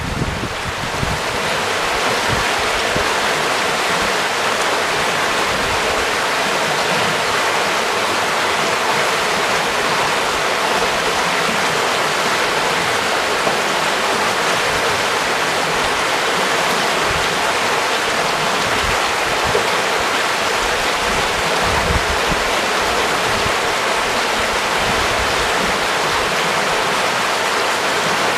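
Shallow river flowing over rocks and stones: a steady rush of running water.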